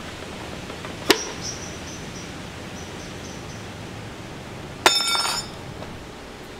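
Two sharp glassy clinks over a steady hiss: the first, about a second in, trails a faint high ringing; the second, louder, near the end, rings brightly for about half a second.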